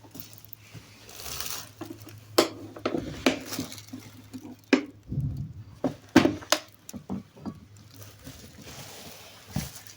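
Irregular clicks, knocks and wet squishing sounds of hands at work, over a steady low hum.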